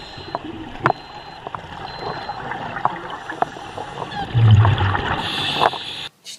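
Underwater sound around a scuba diver: a steady bubbling, gurgling wash with scattered sharp clicks, and a louder low burst of the diver's exhaled regulator bubbles about four and a half seconds in. It cuts off suddenly near the end.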